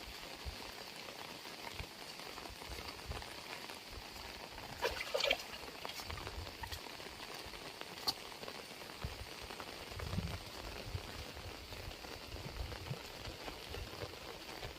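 Heavy rain falling steadily, an even hiss of drops with low knocks underneath. A brief louder sound comes about five seconds in, and a sharp tick about eight seconds in.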